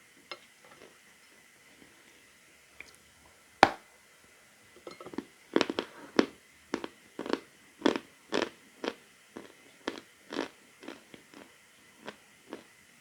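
Edible chalk being bitten and chewed: one sharp snap a few seconds in as a piece is bitten off, then a run of dry, crisp crunches, roughly one or two a second, as it is chewed.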